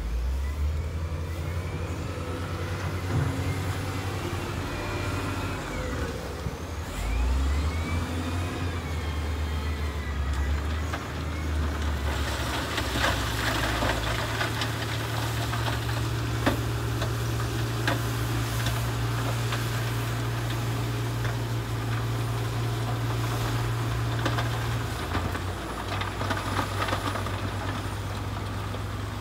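Heavy diesel earthmoving machine working, its engine note shifting in pitch as the load changes, with metallic rattling and clanking building from about halfway through.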